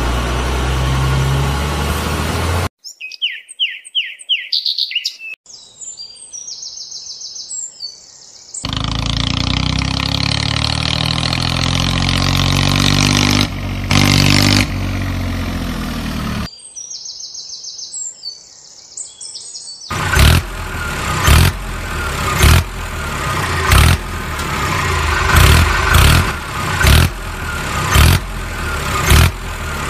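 Added sound effects: an engine running, then bird chirps, a long engine sound falling in pitch, more chirps, and from about two-thirds of the way in, a tractor engine chugging in loud, even beats about one and a half times a second.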